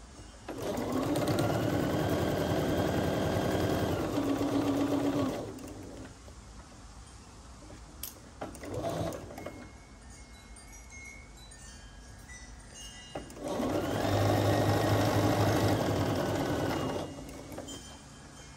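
Bernina B 770 Quilter's Edition Plus sewing machine stitching through quilt fabric in two runs of about four to five seconds each, starting and stopping cleanly, with a pause of about eight seconds between them.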